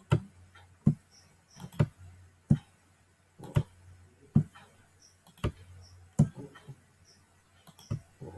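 Computer keyboard keystrokes, the space bar pressed one key at a time about once a second, over a faint low hum.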